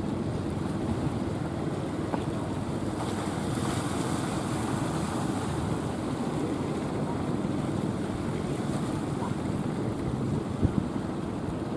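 Rough sea surf and wind buffeting the microphone in a steady rush, with a breaking wave hissing louder a few seconds in and a brief knock near the end.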